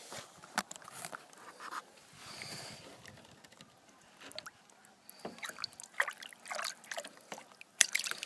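Water sloshing and splashing in a gold pan, with small stones and gravel clicking against it, and a sharp knock near the end.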